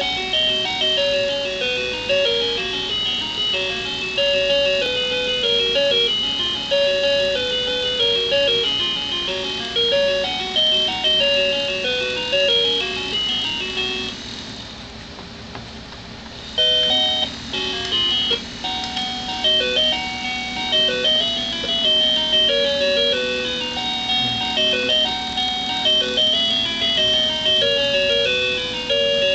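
Electronic toy melody of simple beeping notes, from a baby's ride-on toy car. It stops about halfway through and starts again about two seconds later.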